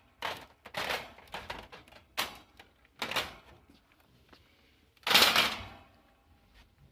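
Hard plastic toys clattering and knocking as they are handled and moved on a shelf: several short knocks, then a longer, louder scrape about five seconds in.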